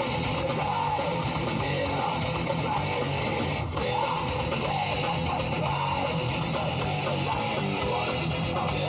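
Background music: a guitar-led rock track, playing steadily.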